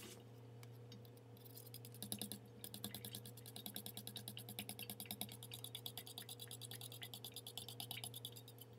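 An egg being whisked with a metal utensil in a small stainless steel bowl: quick, even clicks of metal against metal, about six a second, starting a second or so in and stopping near the end, over a steady low hum.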